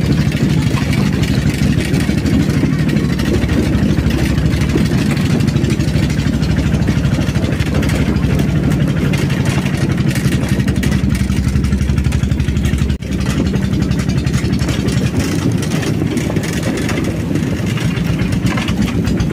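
Motorcycle engine of a rail trolley running steadily under way, with a dense rattle, broken once by a sudden momentary drop about two-thirds of the way through.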